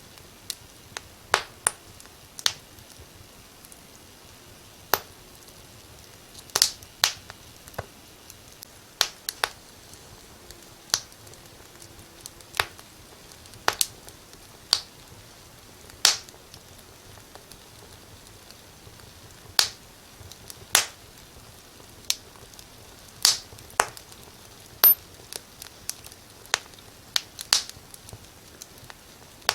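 Wood fire crackling in a fireplace: sharp, irregular pops about once a second over a faint steady hiss.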